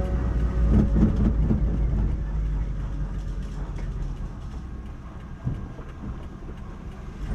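Motor vehicle engine and road noise, a steady low rumble that gradually fades.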